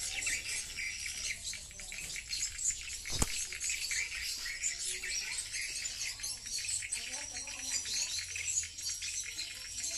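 Swiftlet calls: a dense, continuous high twittering from the swiftlet house's lure-call tweeters, played on first switch-on to draw in the swiftlets circling the building. One sharp click about three seconds in.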